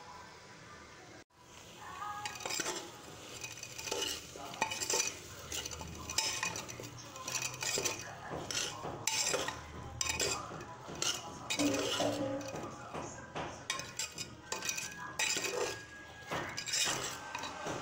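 Rice being stirred and scraped in a cooking pan with a spoon: repeated irregular scrapes and clinks, starting about two seconds in after a brief quieter stretch.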